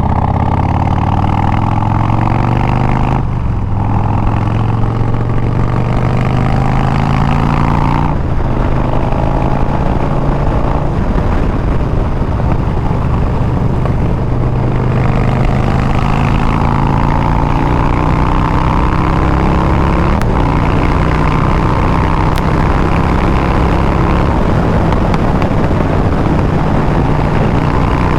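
2020 Harley-Davidson Street Bob's Milwaukee-Eight 114 V-twin running through Bassani exhaust under way, pulling through the gears. Revs climb, drop with a shift about three seconds in and again about eight seconds in, then hold at a cruise with the pitch slowly rising.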